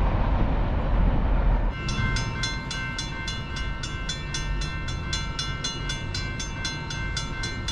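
Low wind rumble, then from about two seconds in a railroad grade-crossing warning bell ringing fast and evenly, about four strikes a second, as the crossing signals activate for an approaching train.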